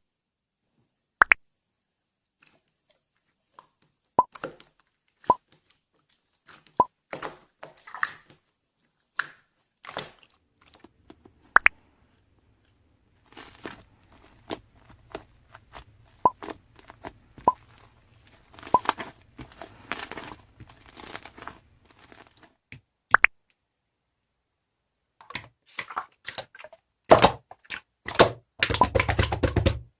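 Slime being pressed and squished by hand: scattered sharp pops and clicks, with longer stretches of crackling, squelching play in the middle and near the end.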